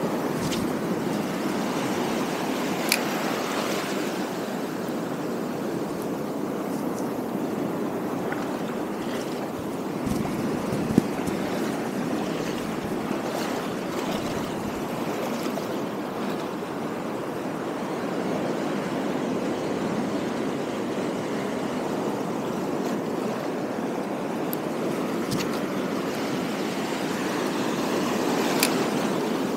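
Sea surf washing over shallow rocks, a steady rushing, with a few sharp clicks, about three seconds in, about eleven seconds in and near the end.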